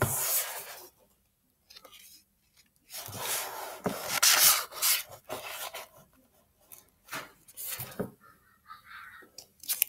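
Paper pages of a picture book being turned and the book handled: rustling and rubbing of paper, with a few short light taps.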